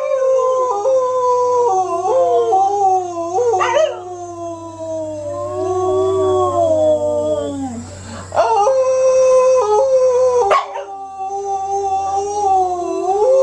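An Aspin (Philippine native mixed-breed dog) howling along with a man's howl made into his cupped hands: two long wavering howls overlap, with a short break about eight seconds in.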